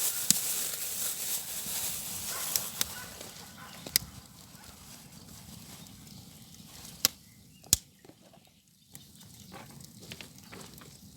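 Wood fire catching: a hiss of burning kindling that fades over the first few seconds, with sharp cracks and snaps of burning wood every second or two.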